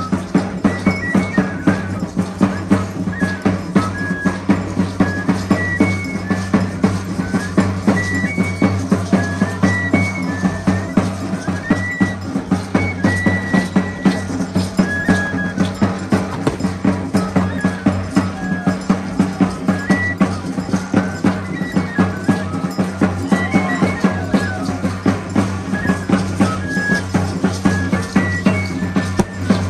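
Traditional music: a high flute plays a short melody of held notes, over a steady, rapid drumbeat.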